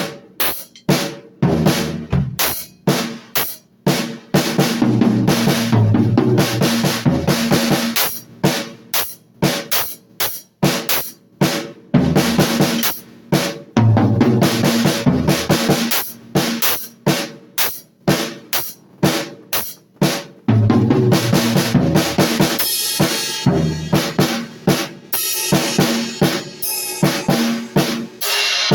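Drum kit played loosely and without a steady groove: bass drum and snare hits in dense, irregular runs broken by short pauses.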